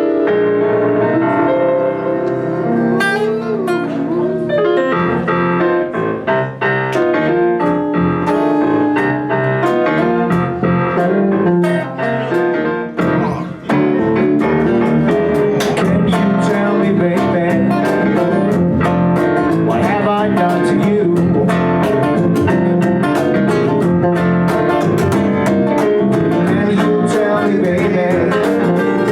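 Live band playing a song's instrumental opening, with keyboard leading at first. About halfway through, the drums and the full band come in with a steady beat.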